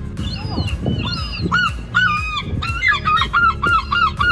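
Herring gulls calling: a juvenile begging from an adult. A few uneven calls at first, then a fast run of short repeated calls, about four a second.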